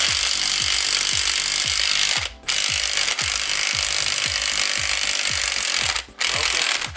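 Small impact wrench hammering on a strut's top mount nut to undo it, running in three bursts with two brief stops of the trigger, about two seconds and six seconds in.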